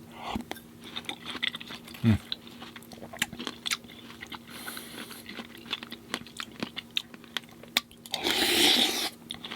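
Close-miked chewing and biting of fresh fruit in coconut water, with many small wet clicks and crunches. About two seconds in there is a short low hum. Near the end a louder rushing noise lasts about a second.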